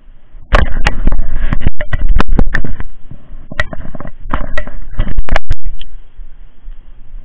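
Loud handling noise: a hand rubbing and knocking against the camera and its microphone, with sharp clicks and scrapes for about five seconds, starting about half a second in.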